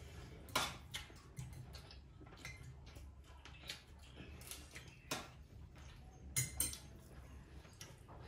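A spoon clinking and scraping against a metal plate while eating, in scattered light taps and clicks a second or two apart, over a low steady hum.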